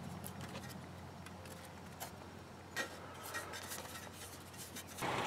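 Faint light clicks and rubbing from oxygen-sensor wiring and its plastic connector clip being handled by hand on the engine, with a sharper click a little under three seconds in. Near the end a louder, steady background noise starts abruptly.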